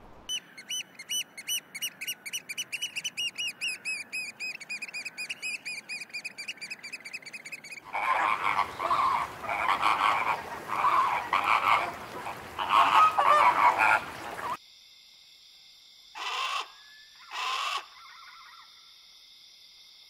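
A parrot's rapid, repeated high chirping calls, about three to four a second, fading over several seconds. Then a dense flock of flamingos honking and gabbling, the loudest part. After an abrupt cut come two short harsh calls about a second apart.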